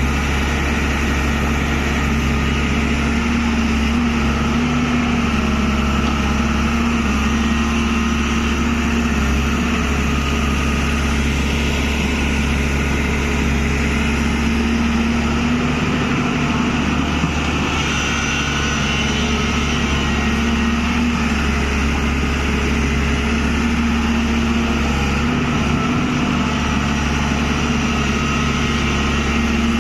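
Tata Hitachi excavator's diesel engine running steadily, its pitch holding nearly level throughout.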